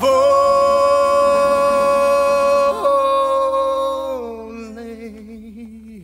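A singing voice holds one long high note, with a brief break in the voice just before three seconds in. It then drops to a lower note that fades away as the song ends.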